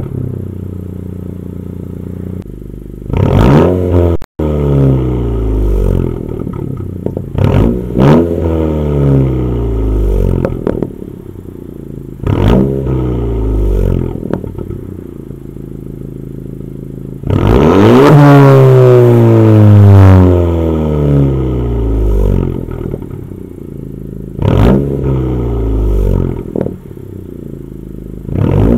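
2021 Honda Civic hatchback Sport's 1.5-litre turbo four-cylinder, heard at the twin tailpipes through a muffler and resonator delete, idling and blipped several times; each rev rises sharply and falls back slowly to idle. The longest and loudest rev is held about two seconds near the middle.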